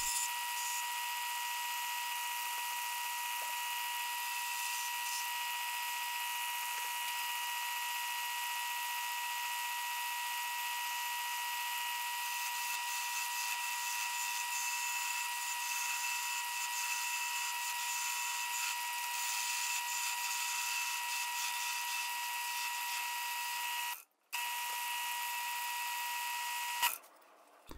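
Wood lathe running steadily with a high whine, with the hiss of a hand-held turning tool shaving a small faceplate-mounted chess piece. The sound drops out briefly about 24 seconds in and stops just before the end.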